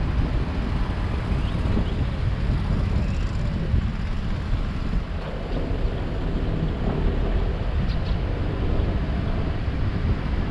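Wind buffeting the microphone over the steady low rumble of a car driving along a street, tyres and engine blending into one noise.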